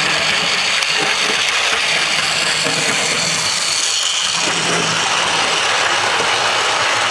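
Model railway J72 tank locomotive running close by, with the whirr of its electric motor and gears and the rattle of its wheels and the passing coaches on the track. The sound is loud and steady throughout.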